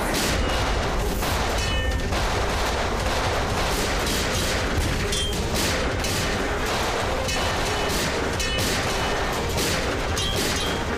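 Pistol gunfire exchanged by several shooters, shots coming in quick irregular succession, two or three a second.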